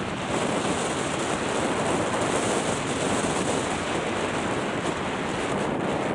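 Steady rushing noise of wind buffeting the camera's microphone, mixed with skis sliding over groomed snow during a downhill run.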